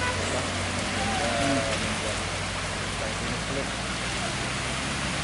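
Heavy rain pouring onto a wet road, with the low steady drone of a truck's diesel engine underneath.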